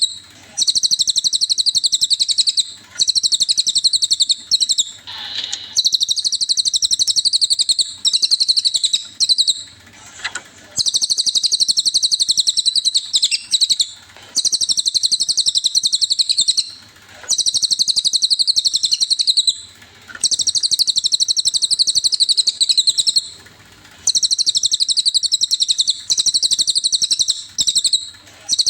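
Cililin bird singing, as used for training cage birds: long, very fast high-pitched trills in phrases of one to three seconds, repeated with short pauses between them.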